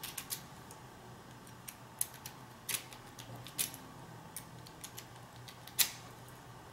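Euro cylinder lock and its key being handled: scattered light metallic clicks and taps, about eight in all, with the loudest click near the end.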